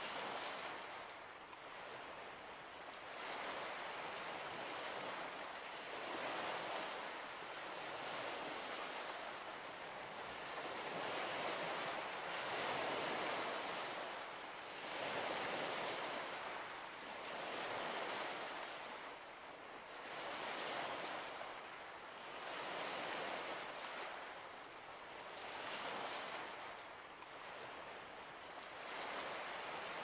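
Waves washing in, a surge of water every two to three seconds over a steady wash, with no other sound standing out.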